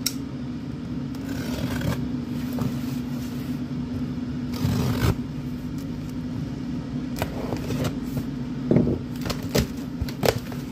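A cardboard shipping box being opened and unpacked by hand: irregular scraping, tearing and rustling with scattered sharp clicks, busiest near the end, over a steady low hum.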